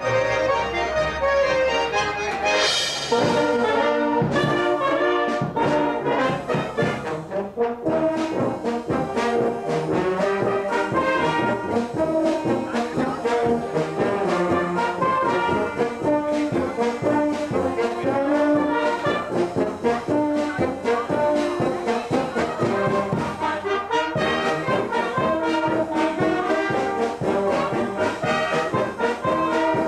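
Live band music: an accordion group with double bass at the very start gives way within the first few seconds to a brass band playing steadily, trombones and trumpets to the fore.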